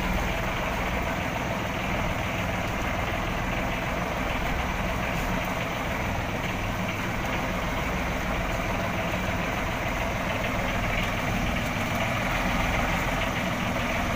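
Outrigger fishing boat's engine running steadily at low speed.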